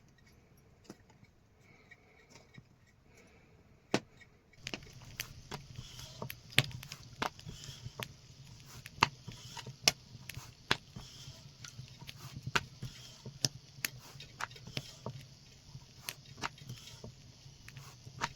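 Knife chopping on a board: sharp knocks roughly once a second, starting about four and a half seconds in, over a steady low hum.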